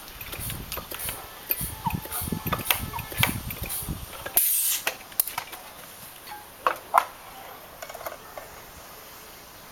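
Homemade rifle being handled: knocks, rubbing and mechanical clicks over the first few seconds, a brief hiss about halfway, then a few sharp clicks.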